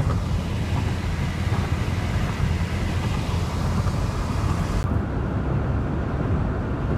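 Steady road and wind noise inside a moving car, a low rumble with a hiss on top. The hiss cuts off suddenly about five seconds in, leaving the low rumble.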